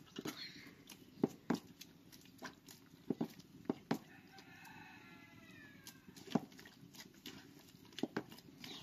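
A rooster crows once, a long call of about two seconds a little past the middle, its pitch sliding down at the end. Scattered sharp knocks and clicks come before and after it.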